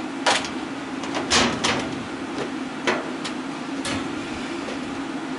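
Metal-and-plastic knocks and clatters as a washing machine's control console panel is handled and tipped up on the top of the cabinet, about five sharp knocks in all. A steady fan hum runs underneath.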